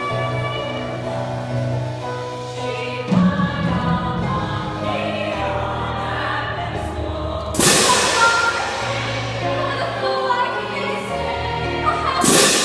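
Stage musical number: a group of voices singing over the accompaniment, with two loud crashes, one past the middle and one near the end.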